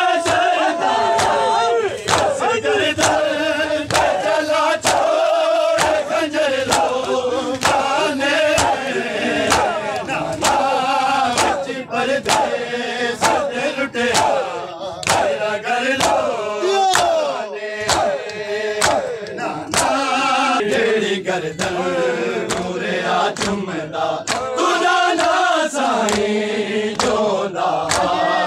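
Crowd of men chanting a noha lament together, with their hands striking their chests in unison (matam), a sharp slap on a steady beat under the singing.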